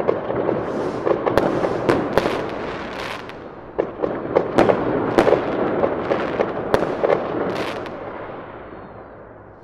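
Fireworks going off: a rushing hiss with many sharp cracks and pops, dying away over the last couple of seconds.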